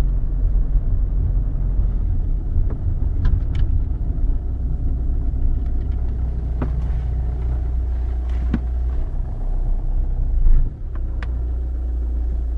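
Car engine and road rumble heard from inside the cabin as the car drives slowly, with a few light ticks and rattles. About ten seconds in there is a brief louder bump, and after it the rumble settles lower and steadier as the car pulls in under a carport.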